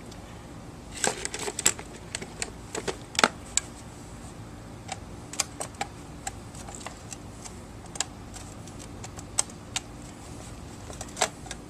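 Tools and metal parts of a garage door opener clicking and clinking as it is taken apart by hand. A quick flurry of clicks comes about a second in, then single clicks every second or so.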